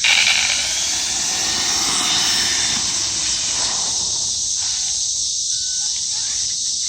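Traxxas E-Revo RC truck's electric drivetrain running with a rough noise and a faint rising whine in the first three or four seconds, then easing off; the owner thinks the rear differential is gone. A steady high hiss of crickets runs underneath.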